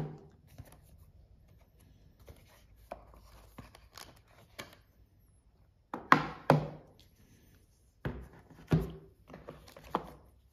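Cardboard packaging and a tablet handled on a wooden tabletop: sharp knocks and thunks as box parts are set down, one at the start, two about six seconds in and three more near the end, with faint rustling of cardboard and paper between.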